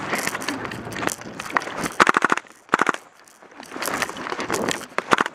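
Airsoft gun firing rapid full-auto bursts, a fast run of sharp clicking shots about two seconds in, a short second burst just after, and a few more scattered shots near the end.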